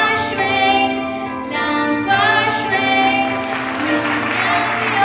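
A song sung by several voices, with an audience clapping along with it from about three seconds in.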